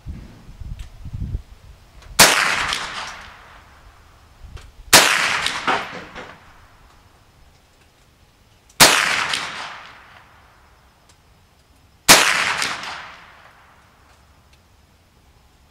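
Ruger 10/22 rifle firing .22 LR rounds in slow, aimed fire: four sharp shots a few seconds apart, each trailing off in an echo that lasts over a second. A low rumble sits under the first second or so.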